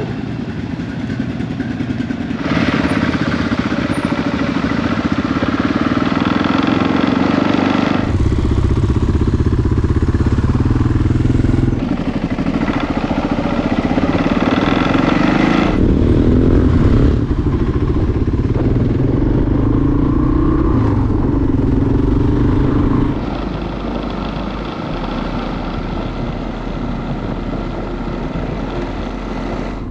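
Dual-sport motorcycles riding along a gravel trail at a steady cruising speed, the engine note running without a break. The sound jumps abruptly several times as short clips from different bikes are cut together.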